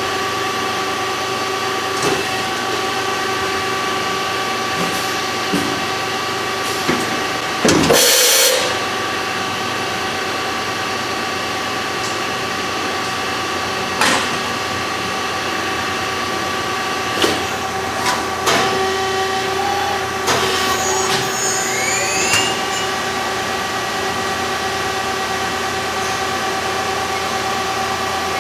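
CNC machine running with a steady mechanical whine made of several held tones. Sharp knocks come every few seconds, with a louder rushing burst about eight seconds in and a few brief rising tones around twenty seconds.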